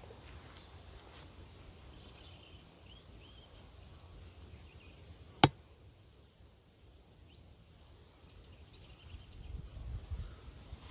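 Quiet outdoor ambience with faint bird chirps and a low rumble. A single sharp click about halfway through is the loudest sound, and soft thuds like footsteps pick up near the end.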